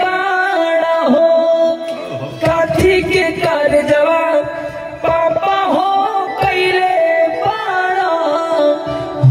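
A woman singing a rustic Bhojpuri wedding song (vivah geet), with held, ornamented notes in phrases and brief breaks between them.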